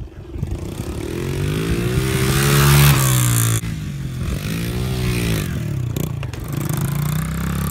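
Honda CRF70 pit bike's small single-cylinder four-stroke engine revving up under throttle as the bike rides past, rising in pitch to its loudest, dropping sharply about three and a half seconds in, revving again briefly and then running steadily.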